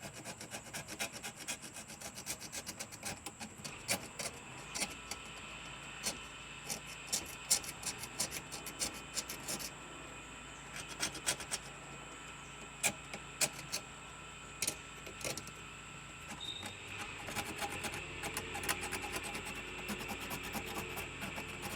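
Irregular scraping and clicking of a tool being scraped over a corroded car battery terminal to clean the corrosion off. A steady background hum comes in a few seconds in.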